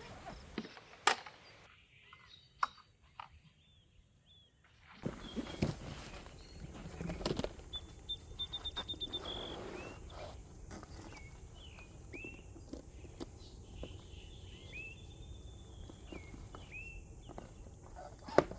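Quiet outdoor ambience with scattered clicks and knocks from handling gear, a quick run of ticks about eight seconds in, then short rising bird chirps.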